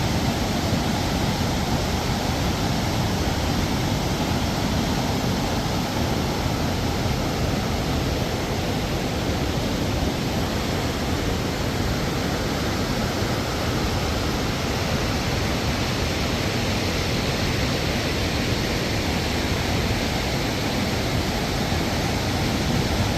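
Urubamba River rapids rushing: a steady, loud roar of fast white water with most weight in the low end.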